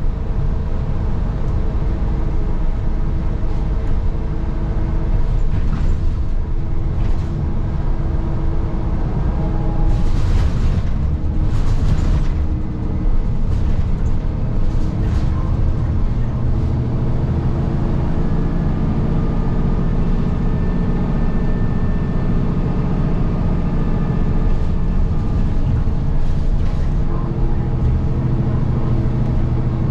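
Inside a moving city transit bus: steady engine and road rumble, with two short hisses about ten seconds in and a stronger engine note from about halfway.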